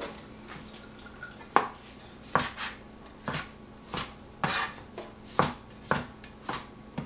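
Chinese cleaver slicing small tomatoes and knocking on a plastic cutting board: a series of short, sharp knocks, roughly one or two a second, starting about a second and a half in.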